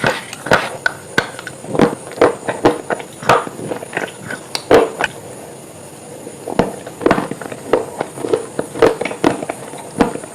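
Crunching: a run of sharp, irregular crunches, several a second, with a pause of about a second just past the middle.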